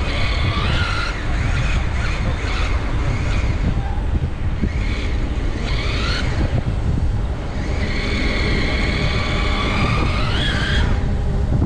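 Wind buffeting the microphone of a moving electric bike, with the e-bike motor's whine coming and going as the rider puts on power, rising in pitch near the end.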